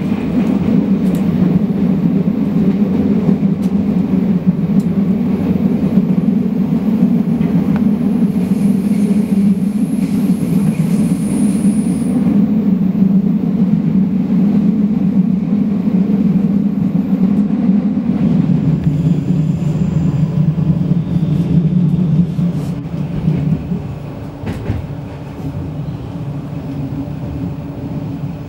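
Passenger train running along the line, a steady loud rumble of wheels on rail heard from inside the carriage, with a faint high whine briefly in the middle. The rumble eases off and gets quieter about 23 seconds in.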